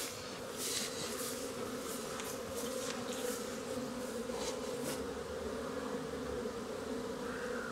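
Honeybees flying in numbers at the entrances of wooden hives, a steady buzzing hum. Over the first five seconds there are short rustling swishes, which then stop.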